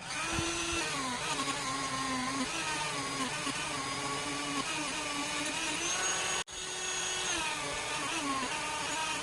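Small electric power tool running at high speed, its whine dipping in pitch and recovering again and again as it is loaded against the work. It cuts out for an instant about six and a half seconds in.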